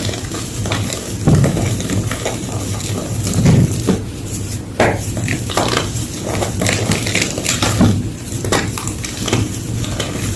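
Gym chalk being crushed and crumbled: an irregular run of crunches and crackles, over a low steady hum.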